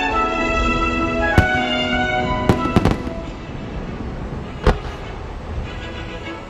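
Aerial firework shells bursting with a handful of sharp bangs over orchestral music that fades out about halfway through.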